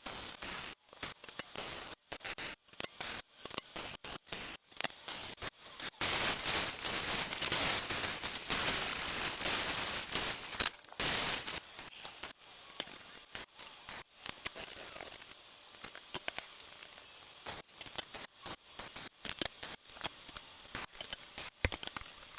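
MIG welding arc crackling in short stop-start runs, with a longer unbroken, louder run in the middle.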